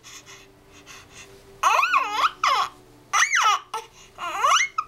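A baby vocalising in three high-pitched squeals, each sliding up and down in pitch, about a second apart, starting a second and a half in.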